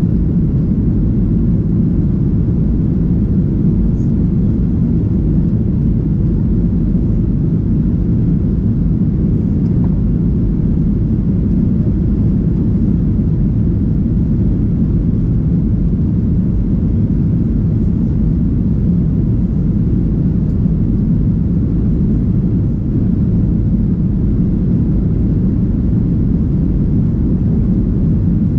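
Steady low rumble inside the cabin of a Boeing 737-800 with CFM56-7B engines running: engine and airflow noise that is constant, with no change in pitch or level.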